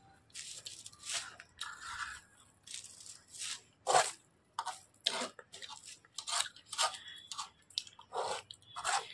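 Close-miked eating of spicy Maggi instant noodles: irregular short, wet chewing and smacking noises, one or two a second, the loudest about four seconds in.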